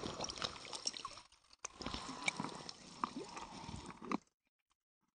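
Water splashing and sloshing as a hooked fish thrashes in shallow water at the bank, with scattered clicks and knocks; the sound cuts off suddenly about four seconds in.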